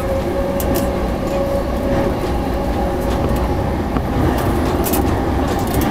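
Chuo Line electric commuter train running at speed, heard from inside the carriage: a steady rumble of wheels on the rails with light ticks, and a faint steady hum over the first couple of seconds.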